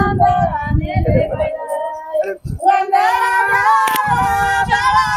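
High voices singing a devotional folk song in long, held, wavering notes, with a single sharp click about four seconds in.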